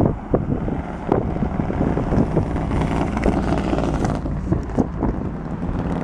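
Wind buffeting a handheld camera's microphone, a steady low rumble with scattered knocks and bumps.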